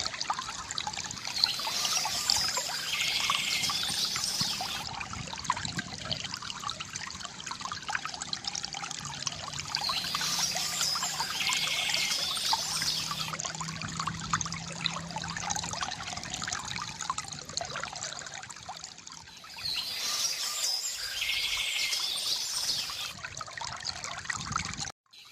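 Small stream trickling and splashing steadily, with a songbird singing a short high phrase three times, about ten seconds apart. The sound cuts out for a moment near the end.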